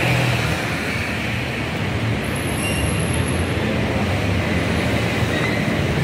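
Steady rumble of city road traffic, engines and tyres on a wide avenue, with no distinct events.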